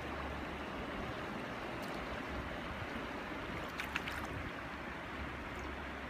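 Mountain stream water running in a steady hiss, with a few brief clicks about four seconds in.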